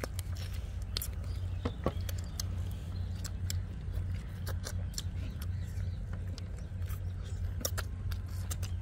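Chewing and eating sounds of two people eating chicken curry and rice by hand: scattered wet clicks and smacks, over a steady low hum.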